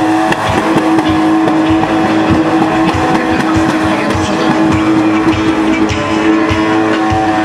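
BMW E30 doing a burnout: the engine held at steady high revs, a sustained even note, over the hiss and squeal of the rear tyres spinning on asphalt.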